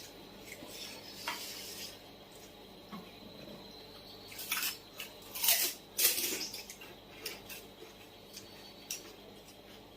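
Close-up eating sounds from a puchka (pani puri) challenge: a handful of short crisp crunches of the puri shells being bitten and chewed, clustered around the middle, with small clinks of dishes.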